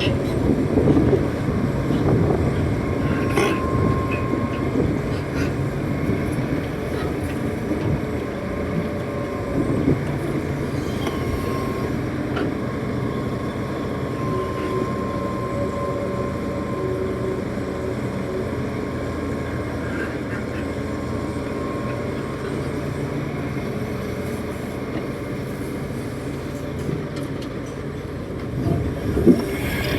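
Hitachi 330 excavator's diesel engine running steadily while the machine works.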